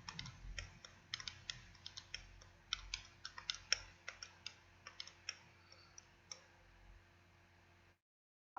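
Fingernails tapping and clicking on a lipstick tube: quick, irregular clicks several a second that thin out after about six seconds. The sound drops out to dead silence near the end.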